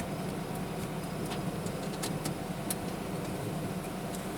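A motor vehicle's engine idling steadily, a low even hum, with a few faint ticks over it.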